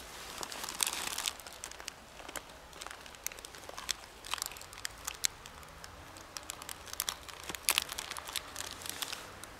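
Plastic wrapper crinkling and crackling as a knife cuts slices from a sugar-dusted stollen held in it, with small crunches from the cut. The crackles come thickest about a second in and again near the end.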